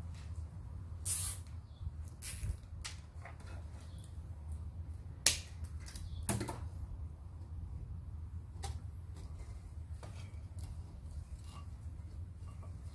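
Scattered clicks, snaps and short rustles of hand work on a submersible pump's cable connections with a hand tool. The sharpest snap comes about five seconds in. A steady low hum runs underneath.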